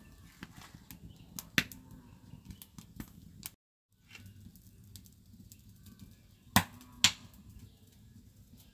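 Hands handling fresh bottle gourd leaves, with scattered sharp snaps and light clicks as the leaves are torn and their stalks broken. One loud snap comes about a second and a half in and two more close together near the end, and the sound drops out briefly in the middle.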